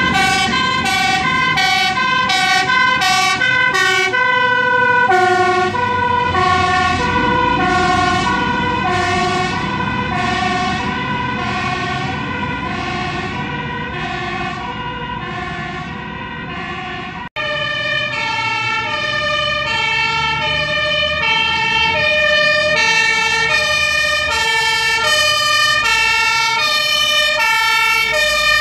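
Dutch fire engines' two-tone sirens alternating steadily between a high and a low note. The pair of notes drops in pitch about five seconds in as the first truck goes by. The sound cuts out for an instant just past the middle, then a second fire engine's two-tone siren grows louder as it approaches.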